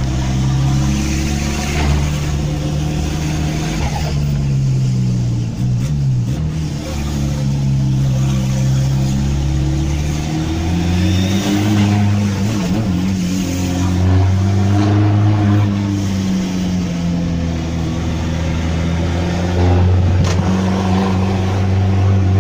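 Toyota 4x4's TDI turbodiesel engine heard from inside the cab while driving, with the note rising and falling with the throttle. The pitch drops sharply about ten seconds in and then climbs again, as at a gear change.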